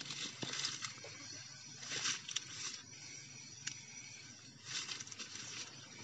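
Forest ambience: short bursts of rustling hiss every couple of seconds, over a faint steady high insect drone, with a few sharp clicks.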